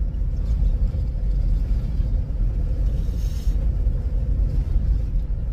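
Steady low road and engine rumble inside the cabin of a moving SUV, with a brief rush of air about three seconds in.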